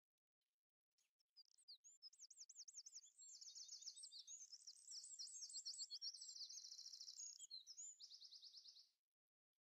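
Songbird singing: rapid high-pitched trills and quick sweeping chirps, starting about a second in and stopping abruptly near the end.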